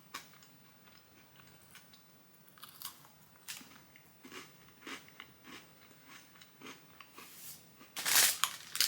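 A person biting and chewing a crunchy peppermint cream sandwich cookie close to the microphone: scattered short crunches, with a louder noisy crunch about eight seconds in.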